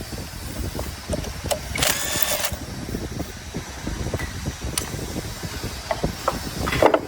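Irregular metallic knocks and clanks of tools working on the blade assembly of a copper granulator, over a low rumble. About two seconds in comes a harsh noise of about half a second, and a shorter one near the end.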